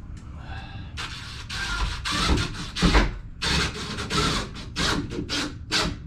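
Rubbing and scraping strokes as a rubber bumper is pushed and worked into an aluminium shower door rail. The strokes start about a second in and come quicker toward the end.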